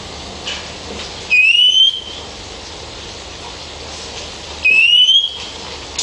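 Oriental magpie robin's common whistled call: two rising whistles, each a little over half a second long, about three seconds apart, over a steady hiss.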